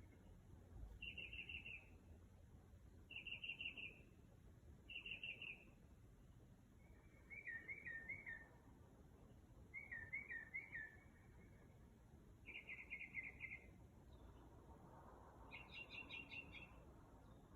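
A songbird singing faintly at night in short phrases spaced a couple of seconds apart. It repeats a quick trill of several notes a few times, then a phrase of looping notes twice, then the trill again, and ends with a higher, busier phrase.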